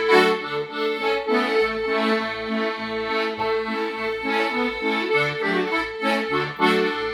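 Instrumental backing of a gospel song between sung lines: a long held note with chords and a stepping bass line moving under it, and no voice.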